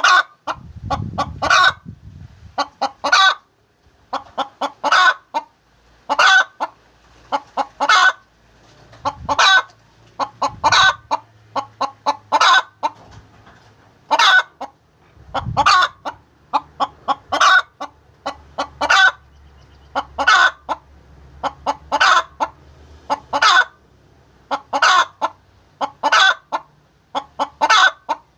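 Hen cackling the egg song: groups of quick clucks, each rising into a louder drawn-out call, repeated about every one and a half to two seconds. This is the call a hen gives around laying an egg.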